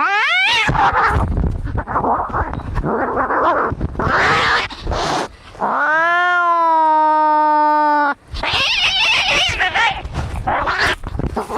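Cats fighting: harsh, noisy screeches and spits, broken by one long drawn-out yowl of about two seconds in the middle, then more harsh screeching.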